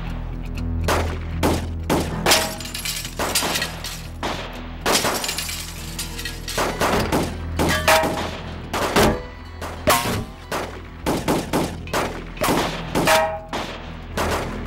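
Heavy, irregular gunfire: many shots, some in quick runs, with bullets striking the truck and breaking glass. Background music plays underneath.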